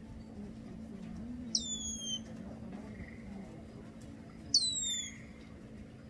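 Male red-winged blackbird calling twice, about three seconds apart. Each call is a sharp, downward-sliding whistle.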